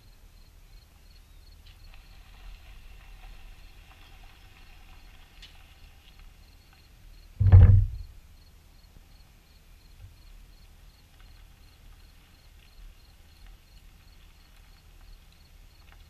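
A hooked seagull being handled gives one short, loud call about halfway through. Otherwise there is only faint outdoor background with a light, regular high ticking.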